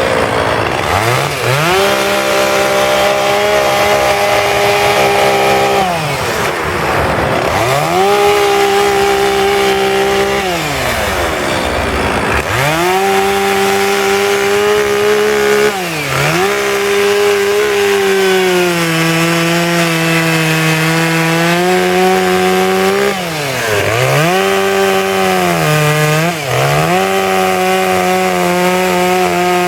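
Two-stroke chainsaw cutting into wood while carving, held at high revs through long cuts and dropping back toward idle briefly several times between them before revving up again.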